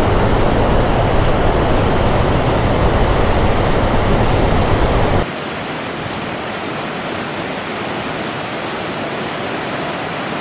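Rocky mountain stream rushing over boulders in small white-water cascades, a steady rush of water. About five seconds in the sound changes abruptly: it becomes quieter and loses its deep low rumble, leaving a brighter hiss of splashing water.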